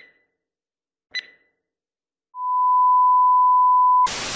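Edited outro sound effects. A short high ping comes at the start and another about a second in. Then a steady single-pitch beep holds for nearly two seconds and cuts off suddenly into the hiss of TV static near the end.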